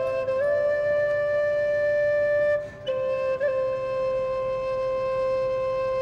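Background music: a flute-like wind instrument playing a slow air in long held notes, with a short break for breath about two and a half seconds in.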